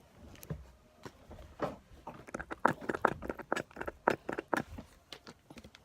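Homemade slime with lotion worked in being pressed together and stretched by hand: a quick run of wet squelches and sticky pops, thickest in the middle.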